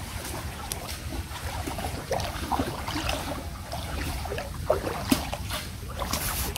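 Shallow floodwater sloshing and splashing around a man's legs as he wades through it, with one sharp click about five seconds in.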